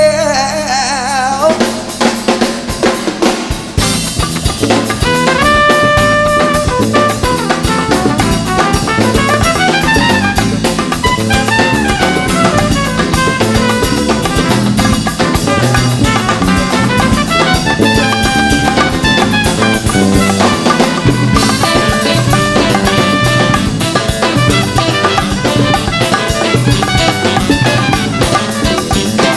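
Live band playing an instrumental stretch of a song, with no vocals: a drum kit keeps a steady beat under held instrument notes.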